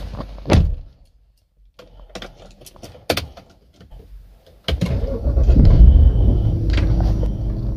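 Music cuts off just under a second in. Scattered clicks and knocks from inside a BMW E60 5 Series car follow, then a loud, steady low rumble starts suddenly about five seconds in as the car's engine starts and runs.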